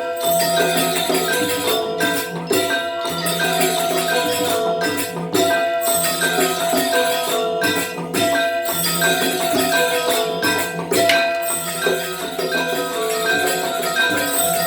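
Balinese gamelan playing legong dance music: bronze metallophones ring a layered melody over a steady beat of percussive strokes.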